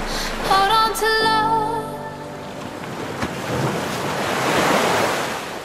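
The last sung notes of a song end about two seconds in, giving way to the wash of ocean waves breaking on a beach, which swells and then fades out near the end.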